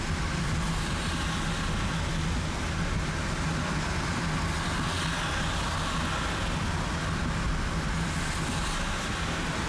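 Car driving through heavy rain: steady road and rain noise over a low, even hum, with the hiss swelling briefly about halfway through and again near the end.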